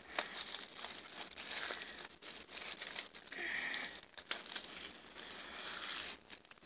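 Thin plastic wrapping crinkling and rustling as it is pulled off and bunched in the hands while unwrapping new plastic quilting rulers, with scattered small clicks. It dies away near the end.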